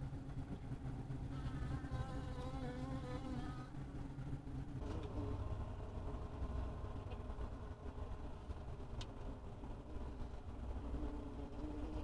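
Honey bees buzzing inside the hive over a steady low hum, with one bee's wavering buzz close by from about a second and a half in until about four seconds.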